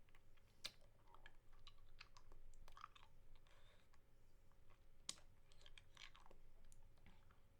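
Faint, close-miked mouth sounds of a lollipop being sucked and licked: a scatter of sharp wet clicks and smacks, with two louder clicks under a second in and about five seconds in.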